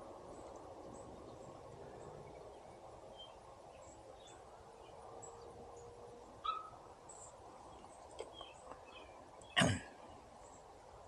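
Quiet outdoor background with faint, scattered high chirps, and one short, sharp sound from a small dog about nine and a half seconds in.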